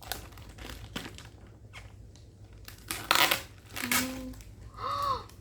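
Packaging crinkling and rustling as it is pulled open, with the loudest rustles about three seconds in.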